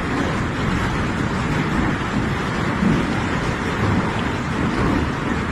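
A heavy hailstorm: hailstones falling thickly and striking the surfaces around, making a dense, steady rush of noise.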